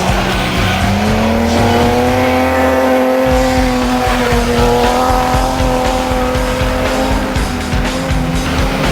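Stock car racing engine held at high revs, a sustained pitched note that steps up slightly about a second in, over tyre and track noise.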